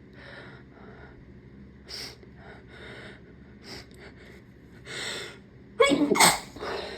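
A person's sneeze, brought on by tickling the nose with a rolled-up tissue: a run of short, breathy catching inhales builds up, then one loud voiced sneeze about six seconds in, followed by a short breath.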